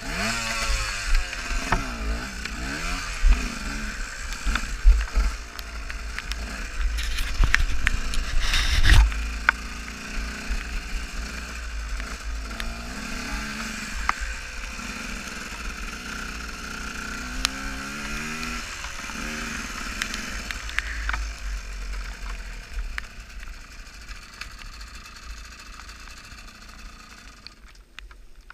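KTM EXC 125 two-stroke enduro motorcycle ridden over a rough dirt track, its engine revving up and down, with a few sharp knocks and rattles from the bike about eight to nine seconds in. The engine grows quieter over the last several seconds as the bike slows to a stop.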